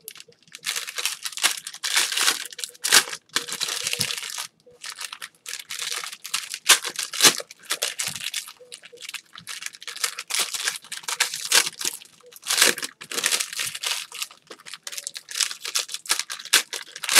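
Foil trading-card pack wrappers crinkling and tearing as packs are ripped open, a steady run of sharp crackling rustles with brief pauses.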